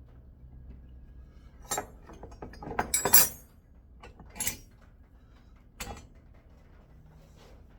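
A few separate knocks and clatters of hard objects being handled, the loudest cluster about three seconds in, over a low steady hum.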